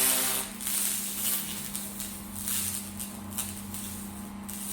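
Handheld fiber laser rust cleaner running in its circle wobble pattern: a steady electric buzz with an irregular hiss and crackle as the laser strips the rust.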